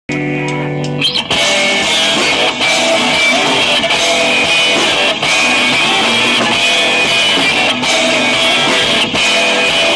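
Live rock band playing loud: electric guitars and bass over a drum kit. For the first second a chord is held, then the full band comes in with dense, driving playing.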